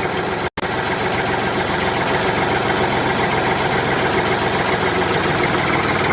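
Tractor engine running steadily with a fast, even chugging beat; it cuts out for an instant about half a second in and carries straight on.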